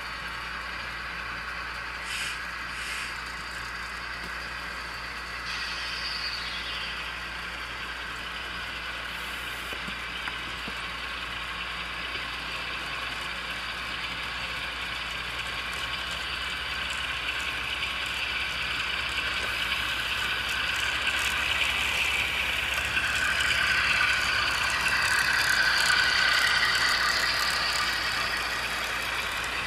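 HO-scale model train running along the layout track, a steady mechanical hum with whining tones that grows louder near the end as the cars pass close by.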